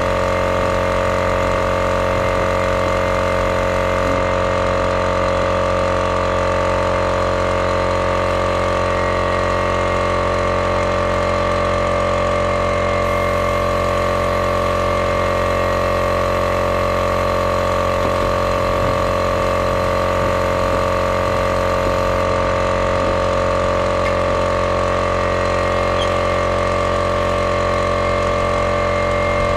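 Small air compressor running steadily, with an even machine hum that does not change, supplying compressed air to a flushing bailer down the well pipe.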